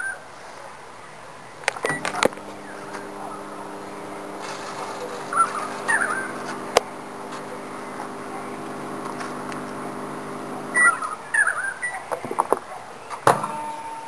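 LG microwave oven running with chip bags inside: a steady electrical hum that starts with a click about two seconds in and cuts off about eleven seconds in. Clicks and knocks of the oven and its door follow near the end, with a few bird chirps in the background.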